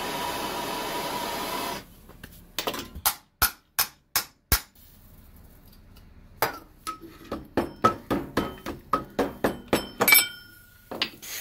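Handheld torch hissing on a rusted starter-motor housing for about two seconds, then cutting off. A few sharp knocks follow, then a quick run of about fifteen hammer blows ringing on the metal housing, knocking apart the seized starter.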